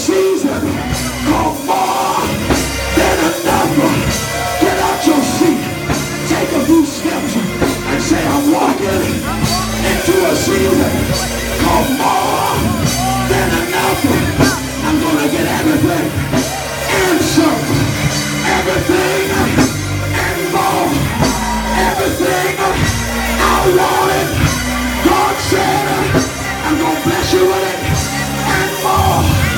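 Loud live church band music with a drum kit, and a man singing and shouting over it into a microphone.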